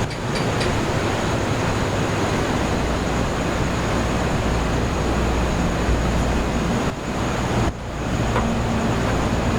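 Sea waves washing on the shore in a steady rush, with a steady high-pitched insect drone over it. A house gecko's short run of chirps comes at the very start, and the rush dips briefly twice near the end.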